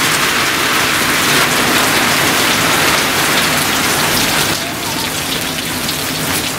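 Rain falling steadily onto standing water on a road, an even hiss of drops splashing into puddles, easing slightly a little after two-thirds of the way in.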